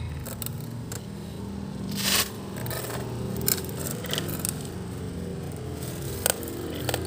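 Small hard objects being handled: scattered sharp clicks and a short scrape about two seconds in, over a low steady hum.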